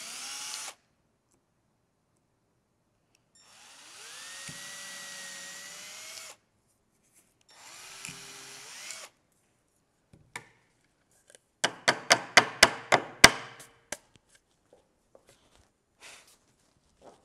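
Cordless drill boring small holes through quarter-inch beech plywood in three short runs, its motor whine rising each time it spins up. Then a quick series of about a dozen sharp knocks, the loudest sound, and near the end a short puff of breath blowing sawdust off the board.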